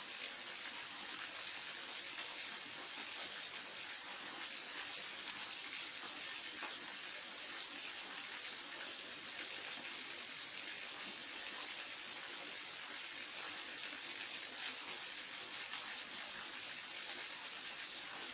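Waterfall: water pouring and splashing in a steady, even rush, its sound mostly a bright hiss.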